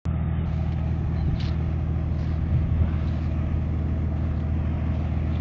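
Small helicopter's engine and main rotor running steadily while it sits on the ground, a low, even drone of the rotor beat with no change in speed.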